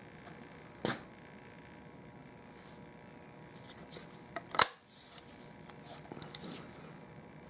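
Handling noises in a small room: a knock just under a second in, then a few faint ticks and one loud sharp click about four and a half seconds in, with a few faint ticks after.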